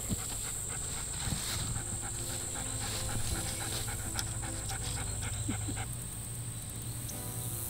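German Shepherd panting in quick, even breaths, which stop about six seconds in.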